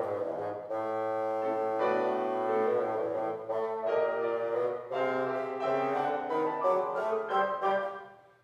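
Classical duo of piano and a wind instrument: the wind player holds sustained notes over piano chords and runs. The music dies away to a brief silence near the end.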